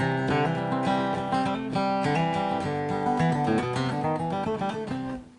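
Credits music led by strummed acoustic guitar, with quick note changes, dipping briefly at the very end.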